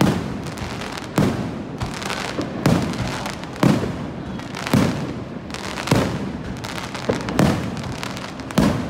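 Aerial firework shells bursting overhead, a sharp bang roughly once a second with a dense crackle of smaller bursts in between.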